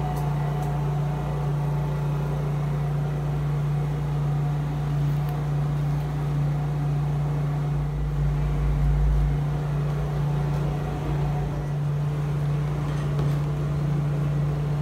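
Steady, unbroken hum of a backup generator running to supply the shop during a mains power cut.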